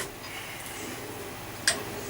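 A single sharp click of a hard part being handled, about three-quarters of the way in, over faint room noise.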